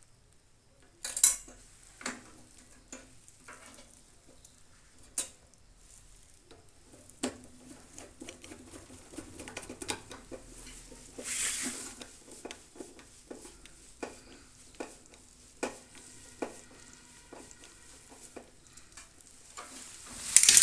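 Irregular metallic clicks, taps and clinks of tools and metal parts being handled during repair work inside a microwave oven, with a short scrape about eleven seconds in. The sharpest knocks come about a second in and near the end.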